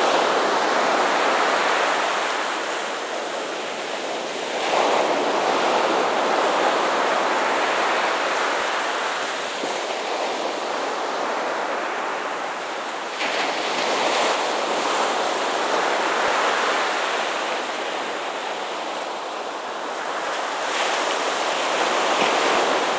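Ocean surf breaking and washing up the beach, a continuous rushing that swells and eases every several seconds, with wind buffeting the microphone.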